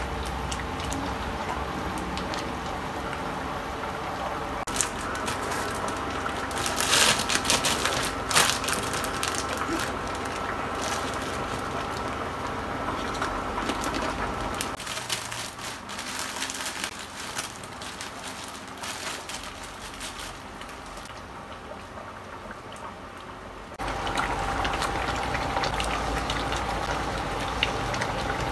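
Pot of mung bean soup simmering with a steady bubbling, stirred with a spatula. A burst of sharp crinkling from a plastic bag comes in around a quarter of the way through and is the loudest sound.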